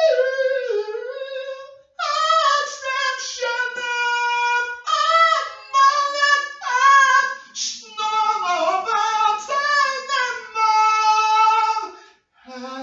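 A man singing a cappella in a high voice, holding long notes, with a brief break for breath about two seconds in and again near the end.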